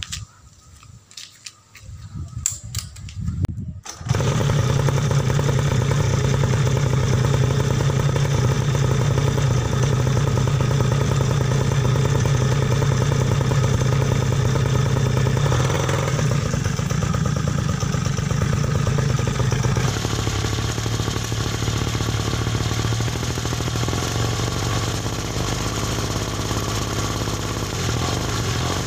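A mini dirt bike's small two-stroke engine starts up about four seconds in and runs steadily, breathing through a Ninja two-stroke silencer. Near the end the drive chain's noise is the fairly loud part of the sound.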